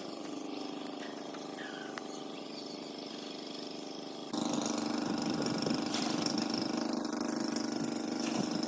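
An engine-driven machine running steadily with a constant hum, jumping abruptly louder about four seconds in.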